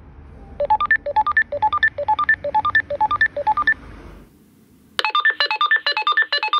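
Retevis RT649P walkie-talkie call tone: a rapid melody of short electronic beeps climbing in pitch over and over, set off by the call button. After a gap of about a second, the same call tone comes louder and cleaner from the receiving radio's speaker.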